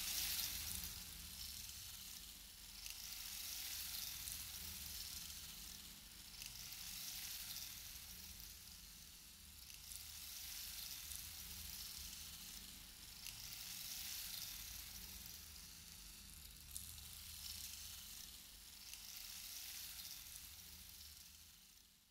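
Faint hissing, crackly noise with no tune, swelling and easing every few seconds and fading away near the end.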